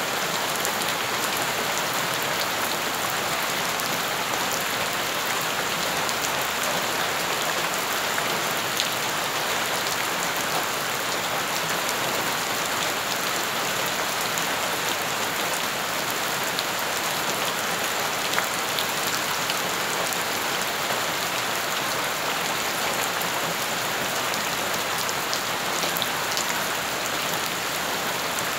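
Steady rain falling on wet ground and puddles, a dense, even hiss with the odd sharper drop splash standing out.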